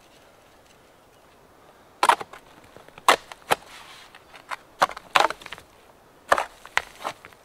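Uneven series of sharp crunches and knocks, often in pairs about half a second apart, starting about two seconds in.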